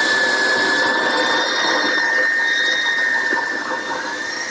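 Small handheld belt sander running against the corner of a pine board, a steady high motor whine over the rasp of the belt on the wood. Near the end the whine dips briefly in pitch and comes back up.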